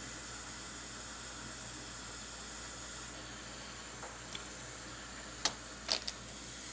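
Steady faint hiss, with a handful of sharp clicks and knocks in the second half, the loudest about five and a half and six seconds in.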